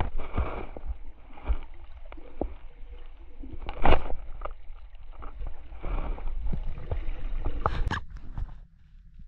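Water sloshing and gurgling, with scattered knocks and louder rushes about four and eight seconds in.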